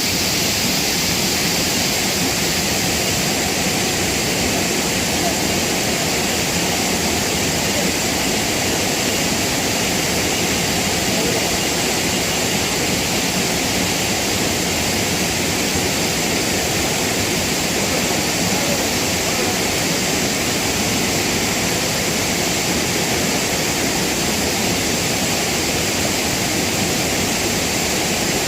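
Waterfall in flood: a loud, steady rush of falling water that never breaks.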